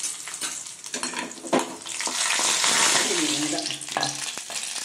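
Cashews and raisins sizzling in hot ghee in an aluminium kadai, with a few spoon clicks against the pan. The hiss swells about halfway through as the hot ghee and nuts are tipped into the pot of rice payasam.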